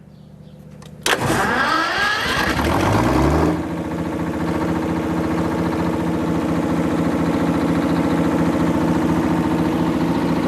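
A 1944 GM Detroit Diesel 6-71 six-cylinder two-stroke diesel on a 60 kW generator set starting up. It bursts into life about a second in and speeds up for a couple of seconds, then settles into a steady run.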